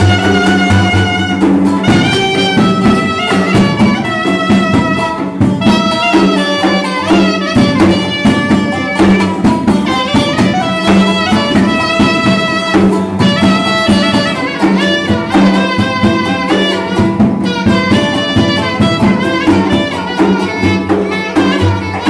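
Live Turkish folk dance tune (oyun havası): a clarinet plays an ornamented melody over steady strumming on a cümbüş and beats on a large frame drum. The strumming grows denser about two seconds in.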